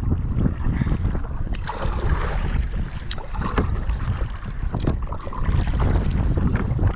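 Gusty wind buffeting the microphone while a fishing kayak is paddled through choppy water with a double-bladed paddle: swishes and splashes from the blades, with a few sharp knocks.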